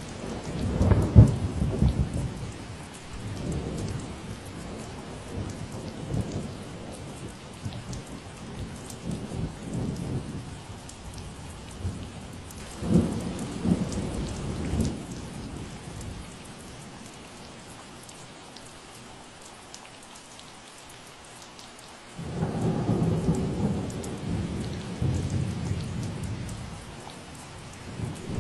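Steady rain hissing, with three stretches of low rumbling: near the start, about halfway through, and again past three-quarters.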